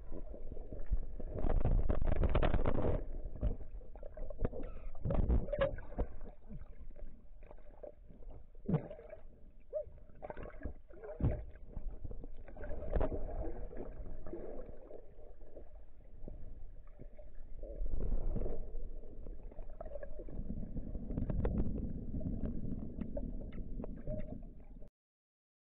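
Muffled underwater noise picked up by a submerged camera: water moving and gurgling around it, with irregular knocks and thuds and a few louder surges. It cuts off abruptly near the end.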